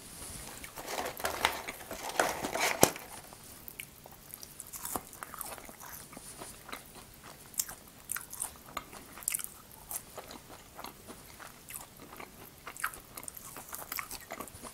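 French fries tipped out of a paper bucket onto a wooden board in a quick patter over the first few seconds, then close-up eating of fries: soft bites, chewing and small mouth sounds.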